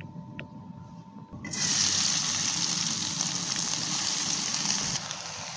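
Sliced red onions dropped into hot oil in a wok, starting a loud sizzle about a second and a half in that drops back just before the end.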